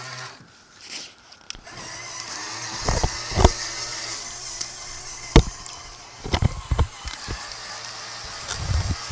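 A small electric motor running with a steady hum and high whine, cutting out briefly about half a second in. Several sharp knocks and bumps come over it, the loudest about halfway through.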